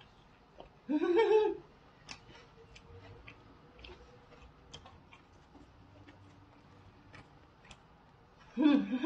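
Close-miked chewing of a rice-paper spring roll, with scattered soft mouth clicks and smacks. A short vocal sound comes about a second in and another near the end.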